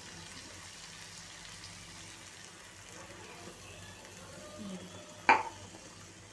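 Spiced onion-tomato gravy sizzling in a pan as water is added and a spatula stirs it, with one sharp knock about five seconds in.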